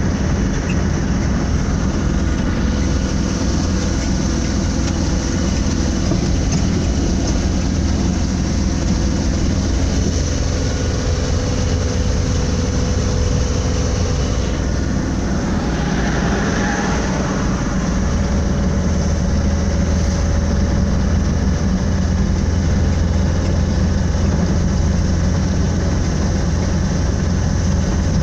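Vehicle engine and road noise heard from inside the cab while driving, a steady low rumble.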